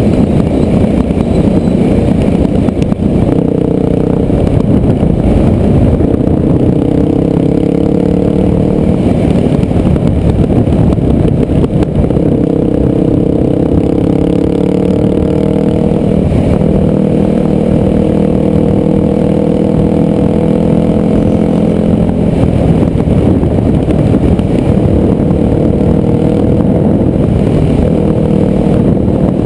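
Dirt bike engine running and revving, its pitch rising and falling again and again over a dense low rumble, heard through the rider's helmet-mounted camera.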